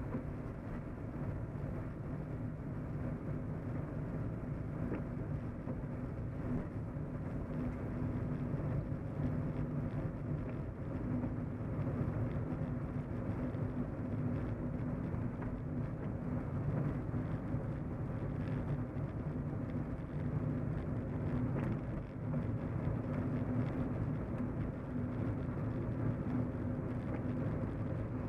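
Car driving, heard from inside the cabin: a steady engine and tyre rumble with a constant low hum, a little louder after the first several seconds.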